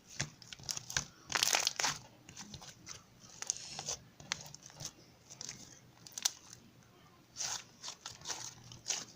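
Slime being squished and poked by hand, giving irregular crinkly crackles and clicks, with a few longer crackling squeezes.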